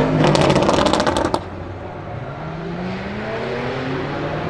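Tuned Audi RS Q8's twin-turbo V8 under hard acceleration, with a rapid run of exhaust crackles through the first second and a half. Then the sound cuts off suddenly, and a fainter engine note keeps rising in pitch as the car pulls away.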